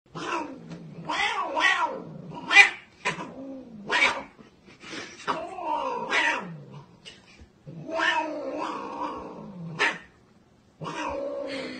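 Domestic cat yowling in a run of long, drawn-out calls whose pitch wavers up and down, about five in a row. There is a brief silent pause shortly before the last one.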